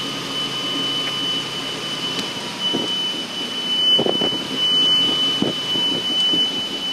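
Sailboat's auxiliary engine running hard at high throttle, pushing against a strong current, with a steady high-pitched tone over it.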